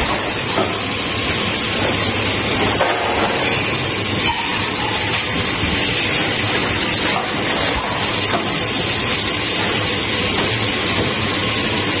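Automatic two-cavity PET stretch blow moulding machine running, with a loud steady hiss of air and a few faint knocks.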